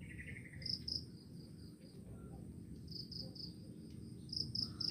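Crickets chirping in short runs of two or three high chirps, with a brief buzzing trill near the start, over a low steady rumble.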